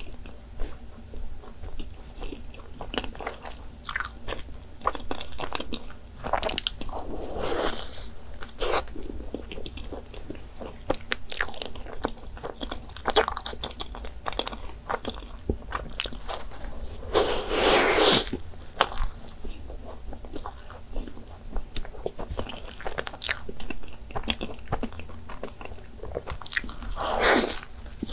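Close-miked mouth sounds of a person biting and chewing soft cream-filled pastries: a steady run of small wet clicks and smacks, with a few louder stretches around a quarter of the way in, past halfway, and near the end.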